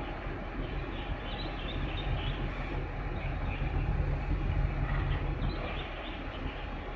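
Large container ship under way, its engine giving a steady low rumble over an even haze of wind and water noise.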